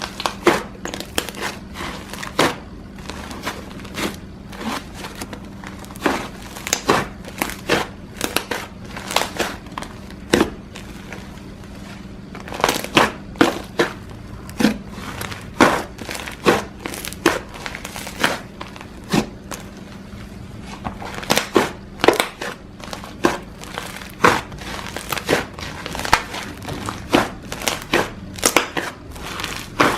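Slime being squished, pressed and stretched by hand, giving dense, irregular crackling clicks and pops, several a second.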